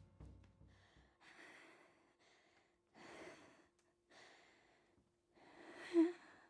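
A person breathing in four separate breaths about a second apart, the last one ending in a short voiced gasp near the end. A drum's low ringing fades out in the first second.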